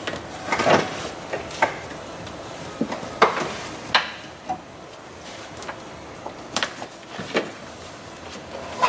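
Irregular knocks, clunks and short scrapes of hands working in a stripped car interior, pulling out the water-soaked floor carpet.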